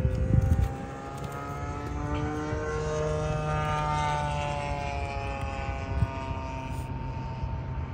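A propeller aircraft's engine running as it passes, its pitch slowly rising and then falling over several seconds. A few knocks sound in the first half-second.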